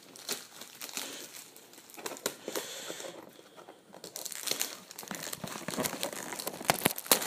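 Plastic shrink-wrap being torn and crinkled off a new VHS tape case: an irregular run of crackles, with the sharpest, loudest ones near the end.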